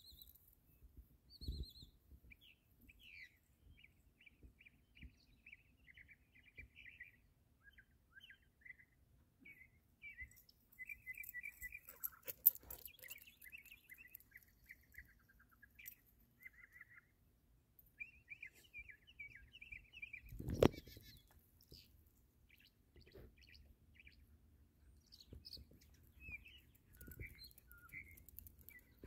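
Northern mockingbird singing: a faint, continuous run of short, varied high-pitched phrases and chirps, each different from the last, with brief pauses between. A sharp click comes near the middle and a low thump about two-thirds of the way through.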